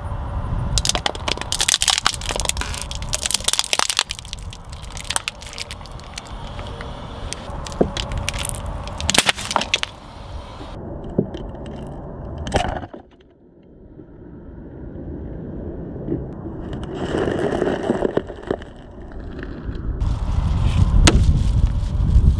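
A car tyre rolling slowly onto plastic objects and crushing them: a run of sharp cracks and snaps as plastic candy cups break, then, after a short break, more crunching and a loud low rumble near the end as a plastic squeeze bottle is squashed under the wheel.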